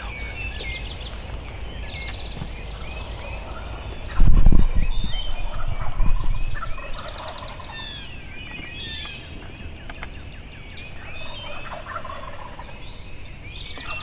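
Eastern wild turkey gobblers gobbling several times, the loudest gobbles about four and six seconds in, with fainter ones later, over many small birds chirping.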